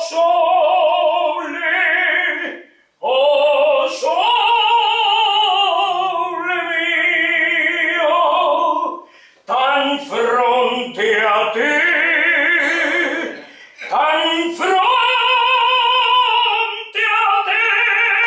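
A man singing in operatic style, holding long high notes with a strong vibrato. He sings in phrases, with short breaths about 3, 9.5, 14 and 17 seconds in.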